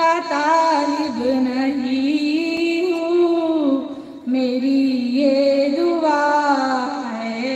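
A female voice singing a devotional Urdu naat solo, long held notes with melodic turns, pausing briefly for breath about halfway through.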